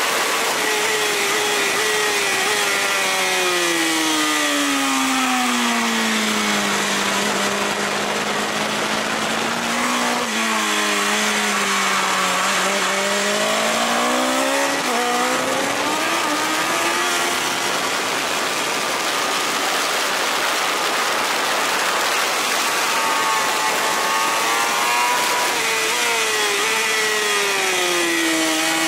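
BMW S1000RR's inline-four engine at speed on track, with wind rush: the revs fall steadily for the first several seconds as the bike slows into a corner, stay low through the turn, then climb as it accelerates out. Near the end the revs drop again into the next corner.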